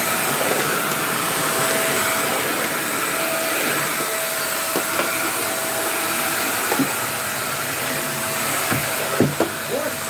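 Small Cosy 2-in-1 corded stick vacuum cleaner running steadily with a constant whine as it is pushed over a wooden floor. A few light knocks come near the end.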